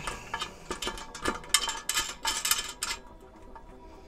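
Metal parts of a charcoal kettle grill being bolted together: a quick run of metallic clicks and clinks from tool and steel leg fittings for about three seconds, then quieter.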